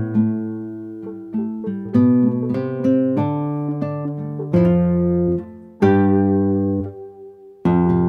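Sampled nylon-string guitar from Spectrasonics Omnisphere's Nylon Sky library, 'Nylon Sky Guitar Expressivo' preset, playing a slow phrase of plucked notes. Fuller chords are struck about two, four and a half, six and seven and a half seconds in, and each rings out and fades.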